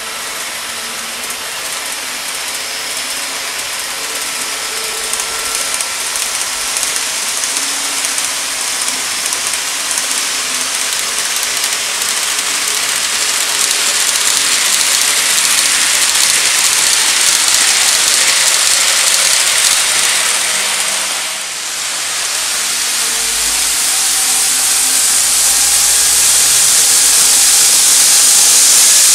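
KATO E4 series N-gauge shinkansen model running on layout track: a steady rattling hiss of wheels on rails with a faint motor whine, growing louder. It dips briefly about 21 s in, then goes on louder.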